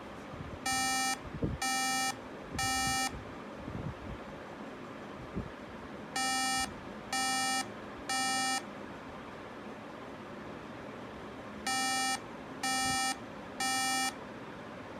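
MacBook beeping through its speaker: three short, buzzy beeps, a pause of about three seconds, then the same three beeps again, repeating. This three-beep repeating pattern is Apple's startup beep code for a memory (RAM) fault. A few soft handling bumps come between the first beeps.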